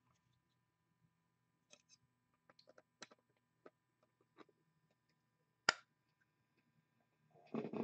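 Faint clicks and taps of trading cards and packs being handled on a tabletop, with one sharper click a little over halfway through and a brief rustle or scrape near the end.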